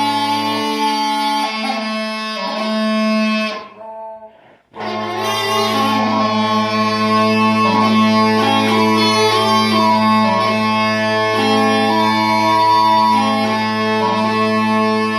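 Mouth-blown Scottish smallpipes playing a tune on the chanter over steady drones. A little under a second in the lowest drone drops out. Around four seconds in the sound dies away briefly, then the drones and chanter strike back in and the tune carries on.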